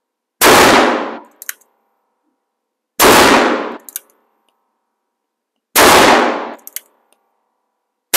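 A Ruger Blackhawk single-action revolver chambered in .30 Carbine fired in an indoor range. Three loud shots come about two and a half seconds apart, each echoing for most of a second and followed by a faint metallic click. A fourth shot comes right at the end.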